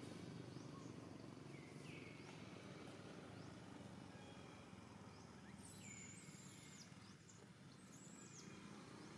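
Near silence: faint outdoor background noise with a few short, high chirps, one about two seconds in and a few more around six and eight seconds in.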